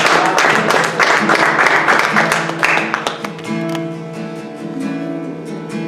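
Acoustic guitar strummed as the lead-in to a worship song: hard, even strumming for about three seconds, then softer ringing chords.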